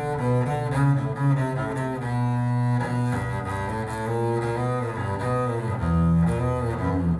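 Music with low bowed strings, cello and double bass, played back through a pair of Radiotehnika S-90 loudspeakers.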